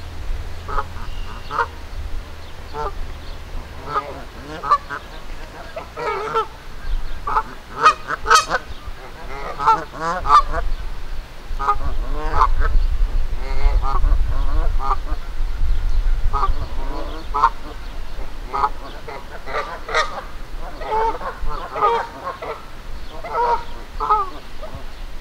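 Agitated Canada geese honking over and over in short calls, at times in quick runs of several.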